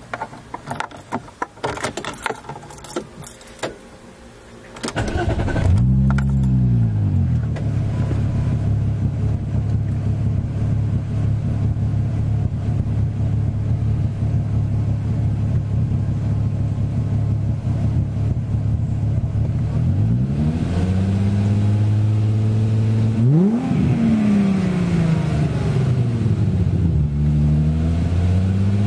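Keys jangling and clicking at the ignition, then about five seconds in a 24-valve VR6 engine cranks, catches with a flare of revs and settles to a steady idle. From about twenty seconds in it is blipped several times, the pitch rising and falling with each rev.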